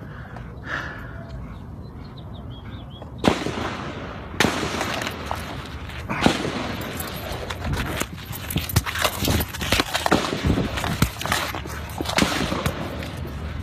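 Gunfire captured on a phone: after about three seconds of quiet, a long, irregular string of gunshots begins, many in quick succession, continuing nearly to the end.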